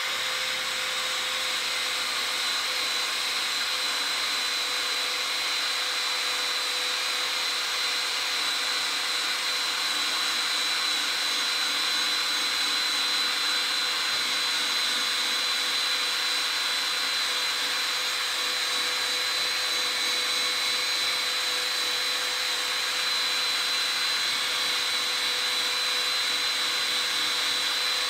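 Cordless drill spinning a rubber eraser wheel at a steady speed against a truck's painted body panel, with a steady motor whine, as the wheel rubs the RAM lettering off the paint.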